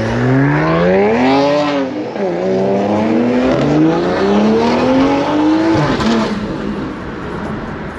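Car engine and exhaust under hard acceleration, the pitch climbing steadily and dropping back at each upshift, about two and six seconds in.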